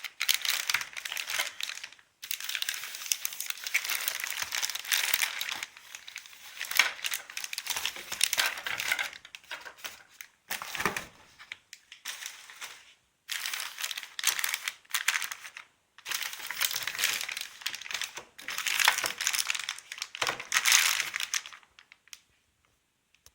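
Packaging of a toner cartridge crinkling and rustling as it is handled and unwrapped, in irregular spells with short pauses between them. It stops shortly before the end.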